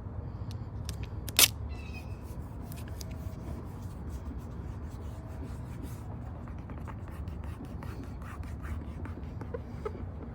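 Hand work on plastic cold air intake parts: small scattered clicks and scrapes, with one sharp loud click about a second and a half in, over a steady low rumble.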